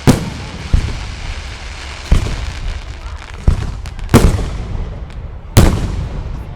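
Aerial fireworks shells bursting: about six loud bangs at uneven intervals, each trailing off in an echoing rumble.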